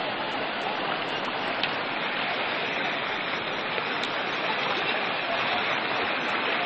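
Fast floodwater rushing over a road: a steady, unbroken rush of churning water.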